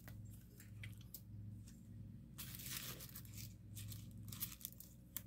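Faint rustling and crinkling of packaging being handled, in short irregular bursts, loudest about two and a half seconds in.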